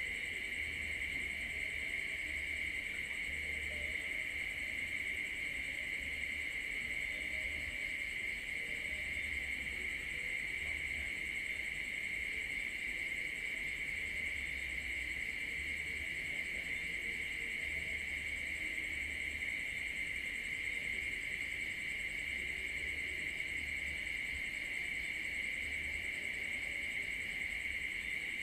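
Steady chorus of crickets and other night insects, a continuous high trill that neither breaks nor changes.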